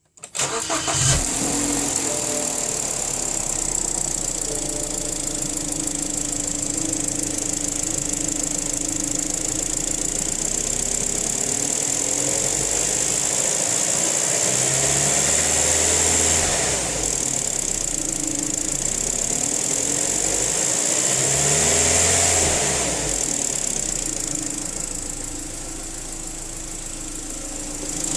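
BMW N45 inline-four petrol engine starting and then running, revved up and back down twice about halfway through. The owner presents the engine as knocking.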